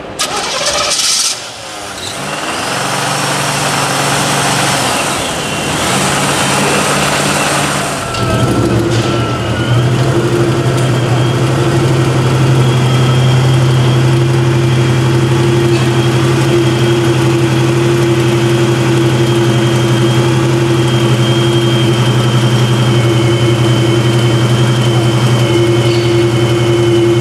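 A V8 muscle car engine starts about a second in and runs. From about eight seconds on it settles into a steady, even idle.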